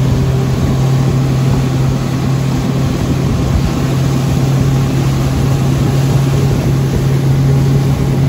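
Pontoon boat's outboard motor running steadily at speed, a constant low hum, over the steady rush of churning wake water and wind.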